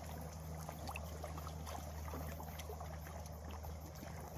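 A steady, low engine hum under a faint hiss, with scattered light clicks.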